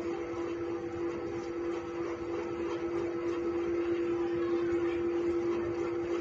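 A steady mechanical hum: one constant mid-pitched tone with a fainter higher one, over an even hiss.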